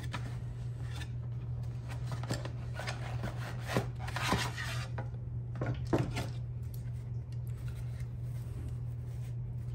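Handling of an ESC's cardboard box and foam packaging: rustling, rubbing and small clicks and knocks, busiest about four seconds in and again near six seconds, over a steady low hum.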